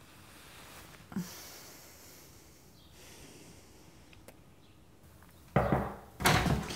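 A sleeper snorts once, briefly, about a second in, over quiet room tone. Near the end come two loud noises about half a second apart.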